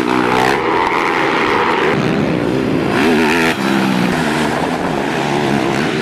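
ATV (quad bike) engine running and revving, its pitch wavering up and down.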